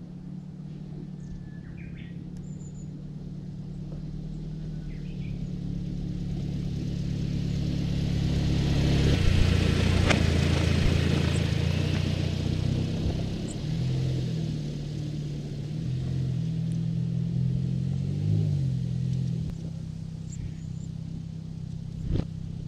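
Nissan NV200 camper van's engine running as the van drives slowly up over grass, growing louder as it comes close. Its engine pitch then rises and falls as the van manoeuvres, before easing off. Faint bird chirps in the first few seconds and a short sharp click near the end.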